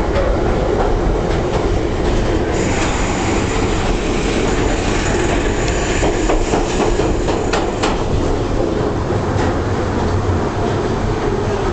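London Underground Piccadilly line tube train running at speed through a deep-level tunnel, heard from inside the carriage as a loud, steady rumble and rattle. A thin, high wheel squeal joins about two and a half seconds in and fades out around eight seconds, with a few sharp clacks from the wheels over the rails near the middle.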